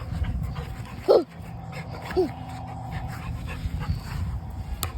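Chocolate Labrador puppy giving two short barks about a second apart, the first the louder, the second falling in pitch: play barks during a tug of war over a stick. A low rumble runs underneath.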